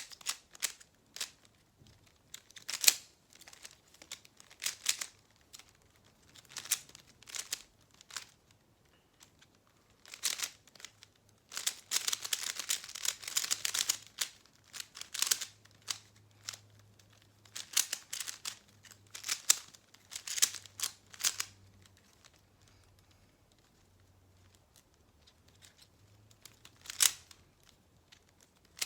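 Plastic Rubik's-type puzzle cube being twisted quickly by hand during a speed solve: irregular runs of clicking and clacking as the layers turn, with a dense stretch of rapid turns about twelve seconds in and short pauses between runs.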